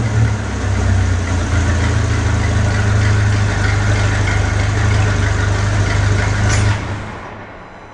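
Ferrari 458 Speciale's V8 idling steadily through an Fi valvetronic aftermarket exhaust, a deep even hum, with the sound dying away near the end.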